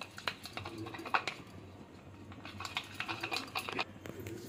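A raw egg with ground black pepper being beaten in a plastic tub with a utensil: quick, irregular clicks and taps against the tub, in two spells, stopping a little before the end.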